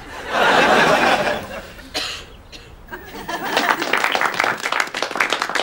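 Studio audience laughing, followed from about three seconds in by a crowd clapping.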